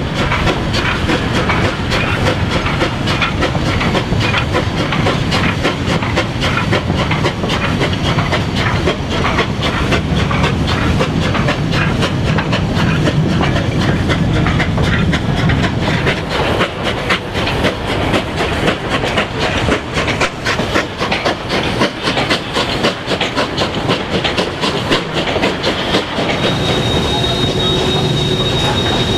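Narrow-gauge steam train on the move: coaches clacking steadily over the rail joints with the 2-8-2 steam locomotive working ahead and some steam hiss. Near the end a steady high wheel squeal sets in as the train rolls slowly into the station.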